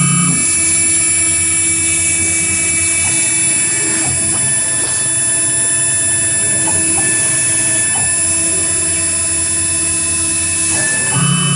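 AKM6090 CNC router running while it engraves foam: a steady, high spindle whine over mechanical noise. A low hum drops out just after the start and returns near the end.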